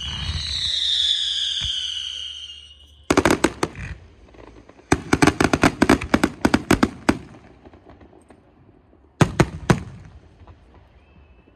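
Fireworks going off: a high whistling screech for the first three seconds, then salvos of sharp cracks. A short cluster comes about three seconds in, a long rapid crackling string follows from about five to seven seconds, and three more bangs come near the end.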